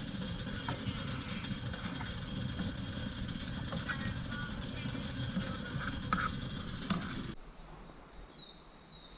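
Wood campfire burning with a steady low rumble and scattered crackles and snaps. It cuts off about seven seconds in to a quiet morning background with a single short falling bird call.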